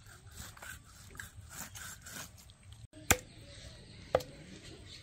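Faint irregular scraping and handling sounds, then sharp knocks with a short ring, about a second apart, starting about three seconds in.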